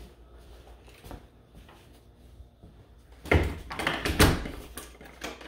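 A door being handled: two loud knocks about a second apart, with quieter clattering around them.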